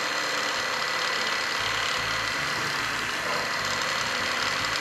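Small benchtop drill press running steadily, its fine bit boring holes into a thin wooden dowel rod. A steady motor sound with a high whine, and a low rumble that swells twice as the bit bites into the wood.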